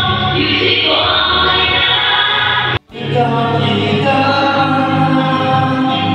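Large group of children singing a church song together, with a momentary break in the sound just under halfway through.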